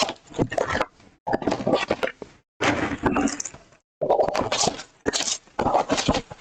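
Packaging of a trading-card blaster box being torn open and handled, in several noisy bursts with sharp crackles and short gaps between them.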